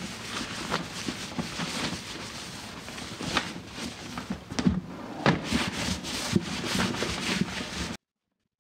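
A rag wiping down a plastic fuel cell with cleaner: steady rubbing, broken by irregular knocks as the cell is handled on the sawhorses. The sound cuts off suddenly near the end.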